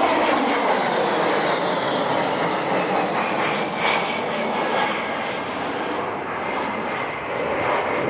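Airplane engine flying past, its pitch falling as it goes by. It is loudest at first and fades slowly.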